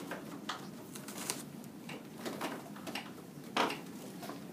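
Kitchen knives cutting onions on cutting boards: irregular taps and knocks of blades meeting the boards, about two a second, with one louder knock about three and a half seconds in.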